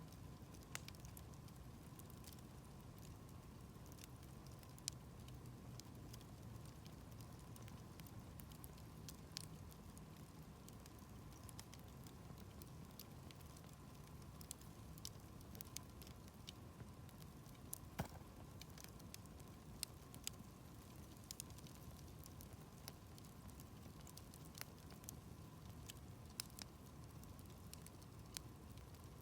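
Wood campfire crackling: scattered sharp pops and snaps at irregular intervals, a few of them louder, over a faint steady low background noise.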